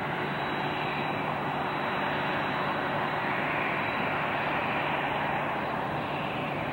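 Jet noise from a Boeing 747-400F freighter's four turbofan engines as it rolls out and slows after landing: a steady rushing that swells slightly about halfway through. It is heard through an old VHS-C camcorder's muffled sound.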